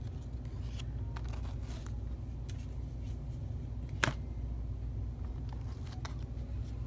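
Tarot cards being handled on a cloth-covered table: faint rustling and light taps, with one sharp click about four seconds in, over a steady low hum.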